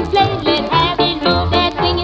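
Upbeat background music with a steady beat and a bending sung or synth melody.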